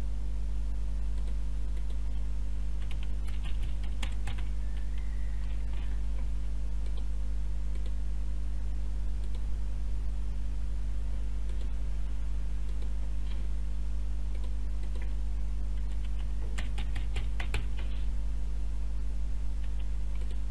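Computer keyboard typing in two short bursts, one a few seconds in and one near the end, over a steady low hum.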